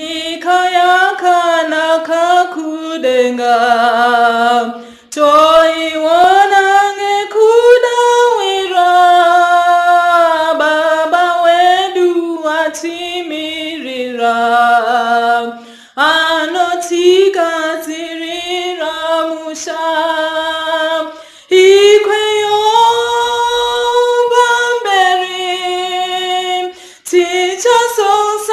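A woman singing a Shona hymn solo and unaccompanied, in long held notes, with short pauses for breath between phrases about five, sixteen and twenty-one seconds in.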